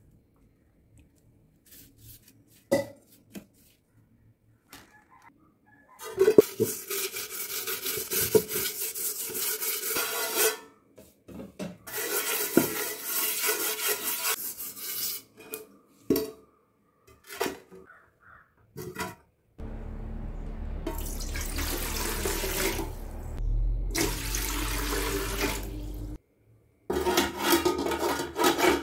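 Hands scrubbing a metal pot with ash in rough, gritty spells, then a longer stretch of water splashing as it is rinsed, with a few knocks of metal vessels.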